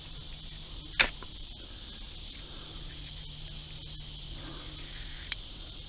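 Steady chorus of insects chirring, with a sharp click about a second in and a fainter one near the end.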